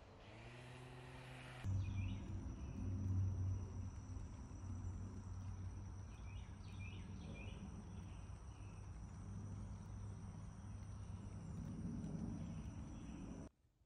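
Outdoor ambience of insects with a steady high-pitched drone over a low steady hum, with a few short chirps about halfway through; it cuts off abruptly just before the end.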